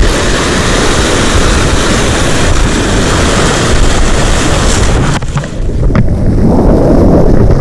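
Loud, rough noise of wind buffeting the microphone over surf washing on the rocks. It eases about five seconds in, and a few sharp clicks follow.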